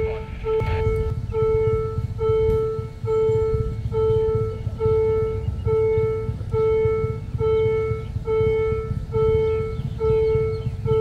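Railway level-crossing warning bell ringing while the barriers are down: one clear tone struck again and again, a little more than once a second, over a low rumble.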